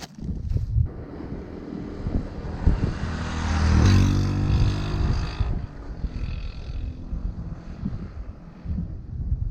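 An engine passing by, swelling to its loudest about four seconds in and then fading away.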